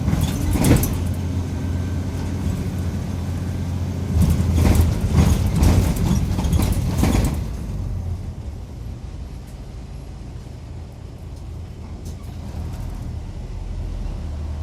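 Mitsubishi Fuso Aero Midi MK bus heard from inside the cabin: the diesel engine runs with a steady low hum, with rattling, noisy bursts over it. About eight seconds in, the sound grows quieter and the low hum carries on.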